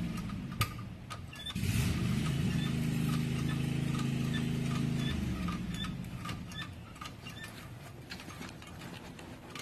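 A motor running steadily. It stops briefly just after the start, comes back about a second and a half in, and fades away about five seconds in. Small clinks and knocks are heard throughout.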